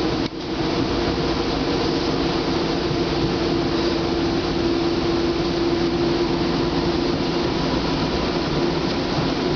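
Siemens Combino Be 6/8 low-floor tram running, heard from inside the passenger compartment: a steady rolling rumble with a low hum that rises slightly in pitch near the end. The sound drops out for a moment just after the start.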